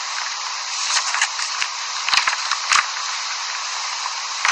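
Steady hiss of room tone with a few faint short clicks, about one and a half to three seconds in.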